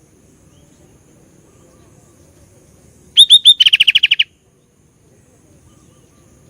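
Sooty-headed bulbul (kutilang) singing one loud burst about three seconds in: three quick down-slurred chirps, then a fast trill of about ten notes a second, lasting about a second and stopping abruptly.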